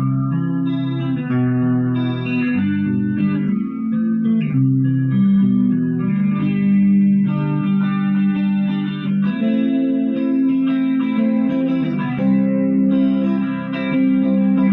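Electric guitar played through a Marshall MG15GFX 15-watt 1x8 combo amp on its clean channel with the chorus effect on. Chords and single notes ring into one another.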